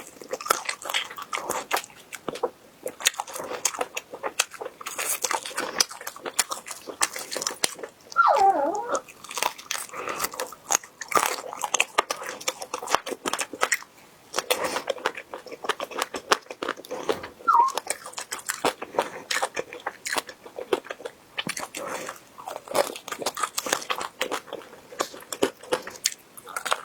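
Close-miked crunching and chewing of crispy duck heads, with many sharp cracks of bone and cartilage coming in quick bursts. A short pitched squeak-like sound comes about eight seconds in and a briefer one near seventeen seconds.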